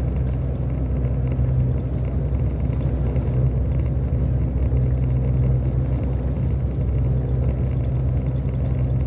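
Steady engine and road noise heard inside a delivery truck's cab as it drives along, an even low drone that holds constant without revving up or down.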